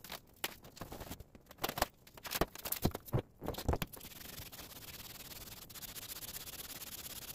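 Aluminium cylinder head of a Kawasaki FH721D V-twin being lapped on wet fine-grit sandpaper to flatten its warped gasket face. Irregular scrapes and knocks come first, then a steady scraping rub from about four seconds in.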